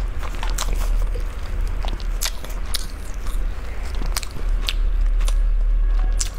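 Crisp fried stuffed flatbread crunching and crackling as it is bitten, chewed and torn apart close to the microphone, in a scatter of sharp crackles, over a steady low hum.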